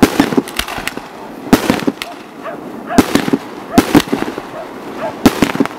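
Fireworks display: aerial shells bursting one after another, a sharp bang roughly every second, each followed by a short run of smaller crackles.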